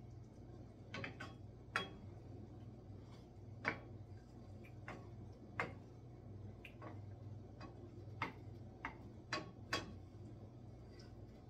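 Wooden spoon knocking against a skillet while stirring tomato sauce with meatballs: sharp, irregular knocks every second or two, over a steady low hum.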